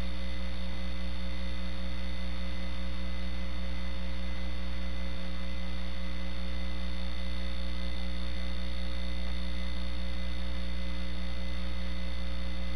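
Steady electrical mains hum with a faint hiss behind it.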